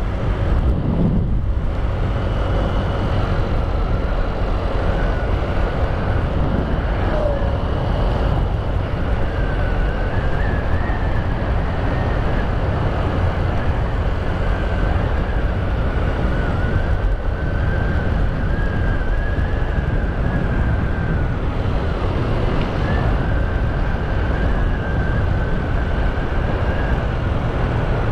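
Motorbike running steadily at cruising speed, its engine hum with a faint wavering whine under heavy wind and road noise on the rider's microphone.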